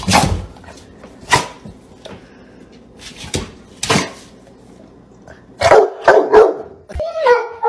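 A large dog giving short, sharp barks: single ones a second or two apart, then a quick run of several about two-thirds of the way through.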